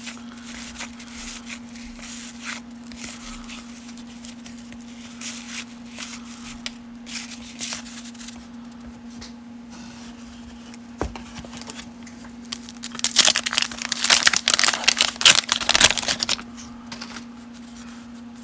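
Soft rustling of trading cards being handled, a single knock about eleven seconds in, then a 1989 Fleer wax pack's wax-paper wrapper torn open and crinkled loudly for about three seconds. A steady low hum runs underneath.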